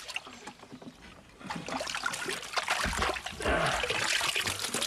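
A landing net sweeping through shallow water and lifted out, water splashing and streaming off the mesh, starting about a second and a half in, with a dull knock near the middle.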